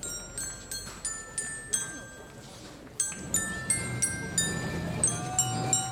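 Bell-like metal percussion struck in a quick, uneven rhythm, each stroke ringing on with high, bright tones. About three seconds in, a low rumble swells up under it.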